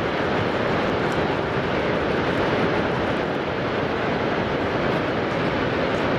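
Niagara Falls: the steady, dense rush of a huge volume of water pouring over the falls and crashing into the basin below, even and unbroken throughout.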